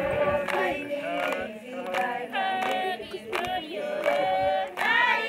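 A group of Maasai women singing together in chorus, a chant with long held notes. A few sharp knocks sound through it.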